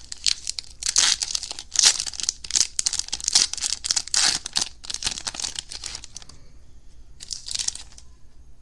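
Foil baseball card pack wrapper being torn open and crinkled in the hands, a fast run of crackling rips for about six seconds. One more short crinkle comes about a second before the end.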